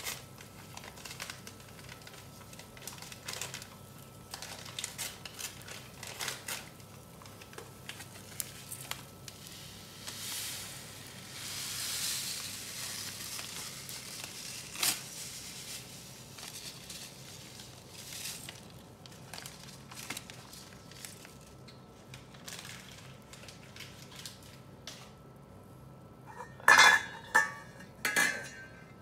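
Water boiling in a stainless steel pot, with small clicks and a hiss that swells for a few seconds around the middle as bulgur goes into the water. Near the end, loud metallic clanks as the pot's stainless steel lid is picked up and handled.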